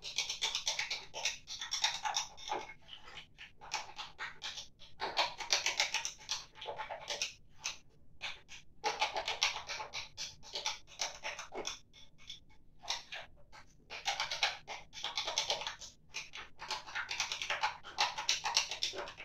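A stirring rod scraping round and round inside a beaker as a liquid cleaner solution is mixed by hand: rhythmic scraping strokes in bouts of a couple of seconds, with short pauses between them.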